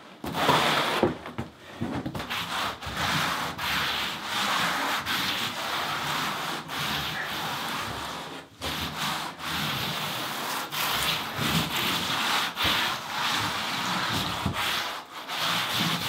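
Repeated rubbing and scraping strokes of a hand tool worked across DITRA membrane bedded in thinset, pressing the membrane down to embed it, with short pauses between strokes.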